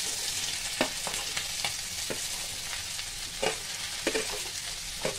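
Chopped okra sizzling as it hits hot oil in a steel kadhai: a steady loud hiss of frying. Several sharp metal clinks and scrapes come through it as the okra is pushed off a steel plate into the pan.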